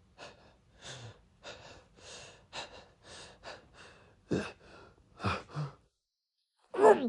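A man's voice acting out a sneeze build-up: about a dozen short, breathy gasping inhales, then a brief pause and a loud, stifled sneeze near the end.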